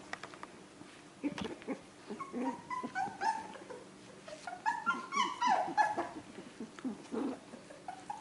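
Australian Terrier puppy at four weeks old giving short, high yips and whines in play, in two clusters about three seconds in and again around five to six seconds in, with a few light clicks between them.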